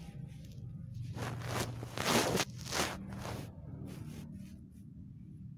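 Rustling and scraping as the phone and a hand brush against a cat's fur and the bedding, several bursts in the middle, loudest about two seconds in, over a steady low hum.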